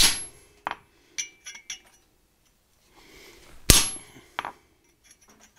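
Hand hammer striking a curved cold chisel held on a flat steel bar on the anvil: two hard, ringing blows, one at the start and one about three and a half seconds later, with lighter clinks between them. The chisel is cutting a line cold into salvaged steel that proves tougher than mild steel.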